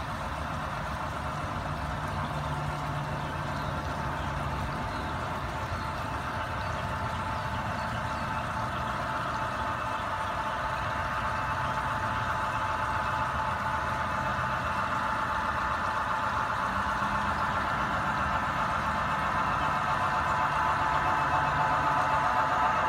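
Garden-scale model train's onboard engine sound running steadily, with a low hum under a higher drone, growing gradually louder as the train approaches.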